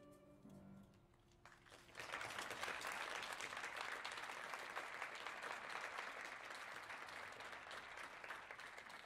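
The last sung notes of a choir with piano die away in the first second. About two seconds in, the audience breaks into applause that carries on steadily and begins to taper near the end.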